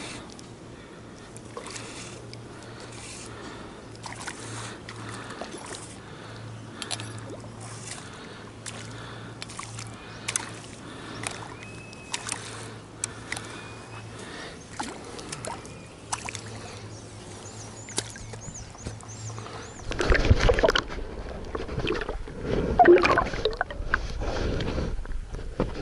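Calm pond ambience with scattered light ticks and a few short high chirps. Then, about twenty seconds in, loud churning, splashing and bubbling as the action camera is plunged underwater beside the float tube.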